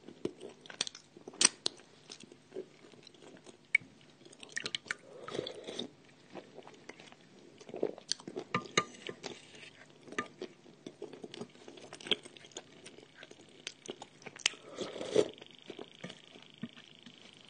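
A person chewing and crunching food, with irregular sharp crunches and smacks.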